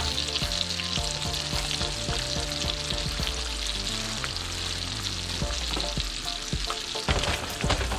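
Trout fillets frying in hot olive oil and butter in a nonstick skillet: a steady sizzle, with a few sharper pops of spattering fat near the end. Fresh pats of butter have just gone into the pan.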